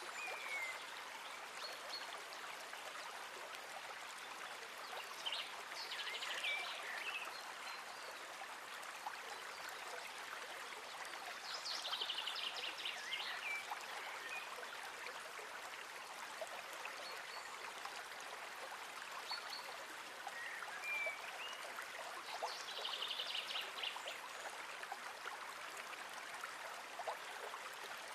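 Forest ambience: the steady rush of running stream water, with birds calling every few seconds in short sliding whistles and rapid trills that come back roughly every ten seconds.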